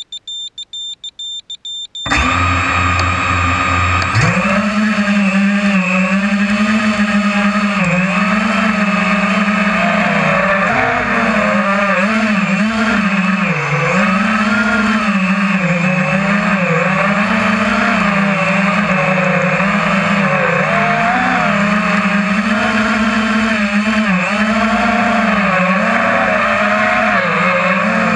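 Rapid electronic beeps, then a small multirotor drone's electric motors spin up about two seconds in and step up to a louder, higher whine about four seconds in as it lifts off. The whine keeps wavering in pitch as the drone flies.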